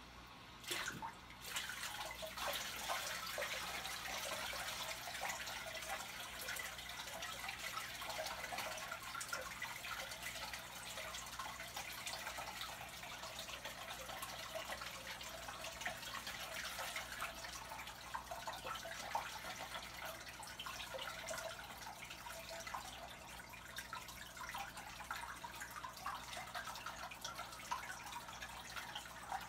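Aquarium water splashing and trickling as hands work in the tank to pull out algae, a steady run of small irregular splashes that starts about a second in.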